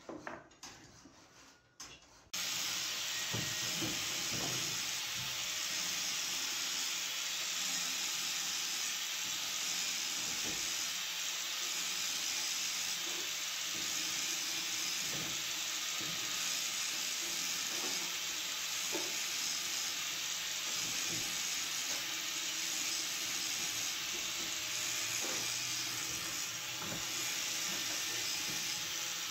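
A steady hiss that starts abruptly about two seconds in and runs evenly, with a few faint clicks of metal sewing-machine parts being handled.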